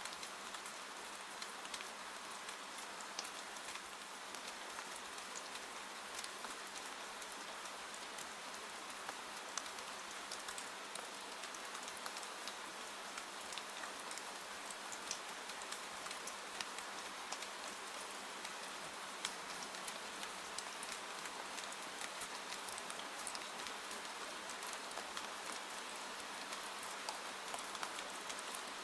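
Steady rain falling on a window: an even hiss with many small, sharp drop ticks scattered through it.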